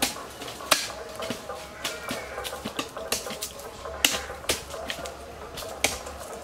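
Hand hoes chopping into and breaking up dry, clodded soil, several workers striking at an irregular pace, each blow a sharp chop.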